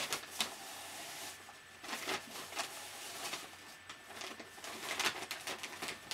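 Brown paper bag rustling and crinkling in short, irregular scrapes as a long piece of red cloth is pulled out of it hand over hand.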